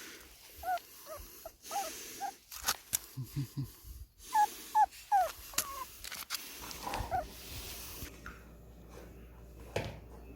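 Dog whimpering in many short, high, falling whines, in two runs with the loudest in the middle, and a few low grunts and sharp clicks about three seconds in.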